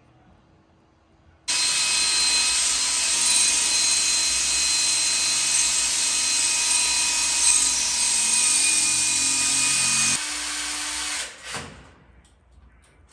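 Cordless drill boring a hole into porcelain wall tile: a loud steady grinding whine that starts about a second and a half in and runs for about nine seconds before stopping. A short burst of the drill follows near the end.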